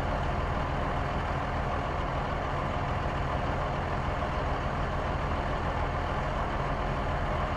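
A vehicle engine running steadily at an even speed, a low drone with no revving or change in pitch.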